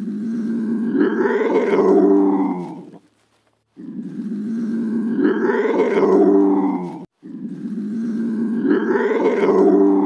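A wild cat's drawn-out growling yowl, rising and then falling in pitch, heard three times with short gaps between, each call about three seconds long.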